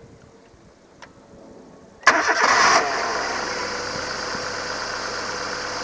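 Citroën Saxo VTR's 1.6-litre four-cylinder petrol engine starting: a faint click about a second in, then about two seconds in it cranks and catches with a brief flare in revs, and settles to a steady idle.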